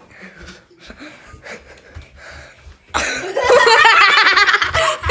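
A few seconds of quiet shuffling, then, about three seconds in, a sudden loud burst of people laughing: family members reacting to a prank sprung on them.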